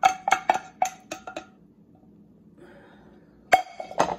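A spatula scraping and tapping against the inside of a pot about eight times in quick succession, the pot ringing briefly after each strike. After a pause, two louder knocks come about half a second apart near the end.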